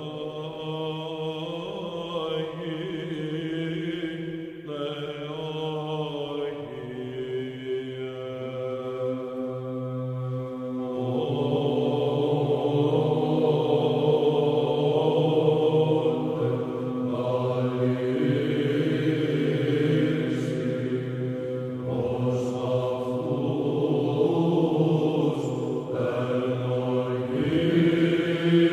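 Background music of slow vocal chant: long held notes over a steady low note, growing louder and fuller about eleven seconds in.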